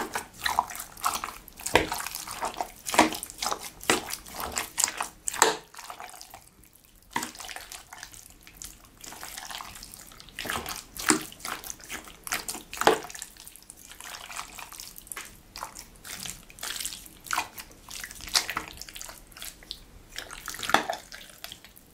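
Chunks of raw pork coated in oil and black pepper being mixed and turned in a stainless steel pot, first by hand and then with a metal spoon: a run of irregular, wet stirring sounds, with a brief pause about six seconds in.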